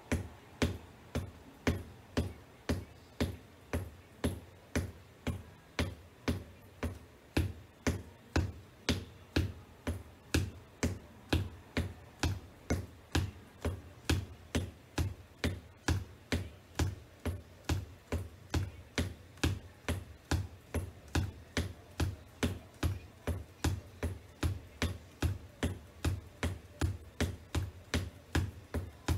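Black wedge shoes tapping on a hardwood floor in a steady, even rhythm of a little over two taps a second, each a low thud with a sharp click.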